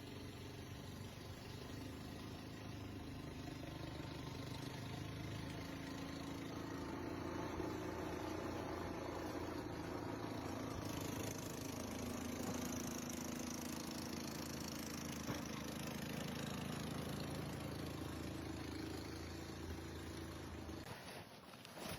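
An engine running steadily at low revs, its hum shifting slightly in pitch, then stopping near the end.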